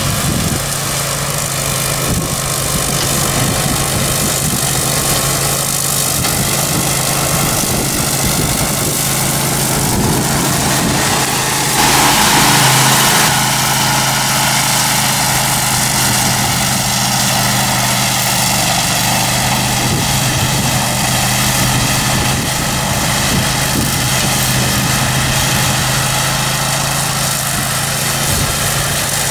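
Grillo Climber 9.22 ride-on mower's 22 HP engine running steadily under load while its blades cut tall dry grass. A brief louder rush of noise comes about twelve seconds in.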